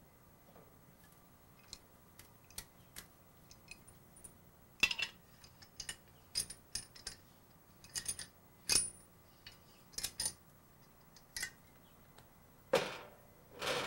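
Scattered metal clicks and clinks as a pressure regulator and a 1 lb propane cylinder are handled and the cylinder is screwed onto the regulator of a Coleman propane camp stove. Two louder handling noises come near the end.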